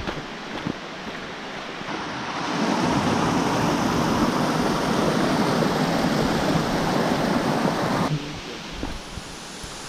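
Rushing water of a cascading rocky mountain stream, a steady hiss that swells about two seconds in and cuts off suddenly near the end.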